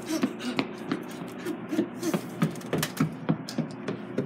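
Quick footsteps, about two to three a second, as someone runs and then climbs stairs, over a faint steady hum.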